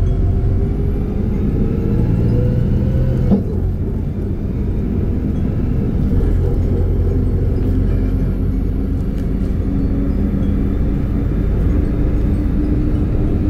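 Interior sound of a Volgabus-4298.G4 city bus under way, its Weichai CNG engine and drivetrain humming over a steady road rumble. A whine rises in pitch for the first three seconds as the bus gathers speed, then breaks off with a short click, and a steadier drone follows.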